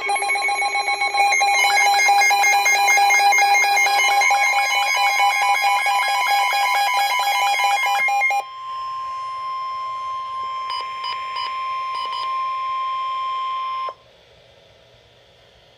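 Emergency Alert System alert opening: about eight seconds of rapid, chattering digital data tones (the SAME header), then a single steady alert tone that holds for about five seconds and cuts off sharply, leaving a brief quiet pause. It marks the start of a flash flood warning broadcast.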